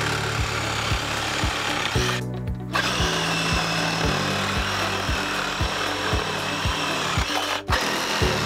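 Reciprocating saw cutting through PVC pool plumbing pipe, with a short pause about two seconds in and another brief stop near the end. Background music with a steady beat plays underneath.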